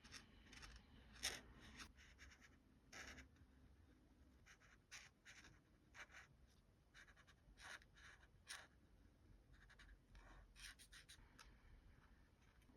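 Faint, irregular scratching strokes of a colouring tool on a paper colouring page.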